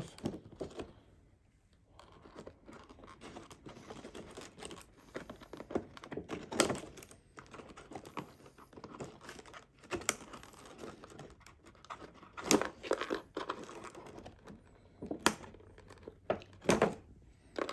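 Rustling and crinkling of cardboard and plastic toy packaging, broken by scattered sharp clicks and snaps, as the wire tabs holding a Furby in its box are clipped off and pulled free.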